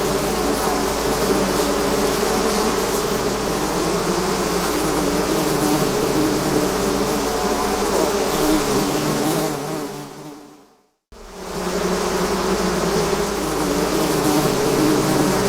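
Dense buzzing of a bee swarm, many wavering drones layered together. About ten seconds in it fades out to a moment of silence, then fades back in.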